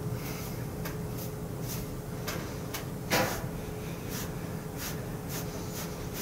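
Hands kneading and squeezing a person's legs through synthetic leggings on a towel: a run of short fabric swishes about two a second, one louder about three seconds in, over a faint steady hum.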